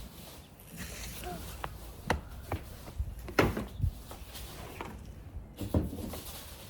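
Woody branches being chopped and handled: several irregular sharp knocks, the loudest about halfway through, with rustling between.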